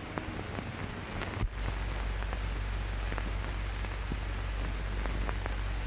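Surface noise of an old optical film soundtrack with no dialogue: steady hiss with scattered crackles and a low hum. About a second and a half in there is a brief dropout and a click, and the hum is louder after it.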